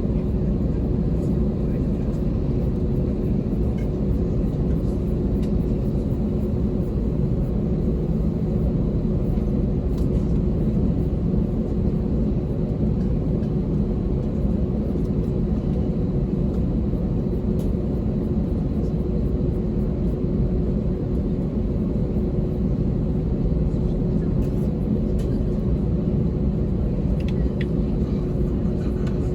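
Steady cabin noise inside an Airbus A321-200 airliner: an even low rumble of engines and airflow with a constant hum.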